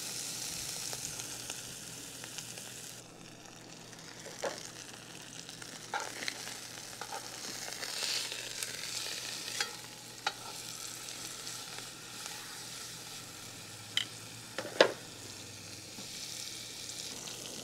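Beef chuck roast sizzling steadily in hot olive oil as it browns in a cast-iron camp oven. Several sharp clicks and knocks of metal tongs against the cast iron are heard as the roast is turned, the loudest about three seconds before the end.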